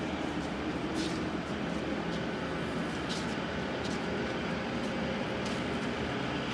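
GSP 44K14 radial drilling machine running with its spindle turning: a steady mechanical hum with a few faint high ticks, and no major noise from the spindle, a sign of the spindle's good condition.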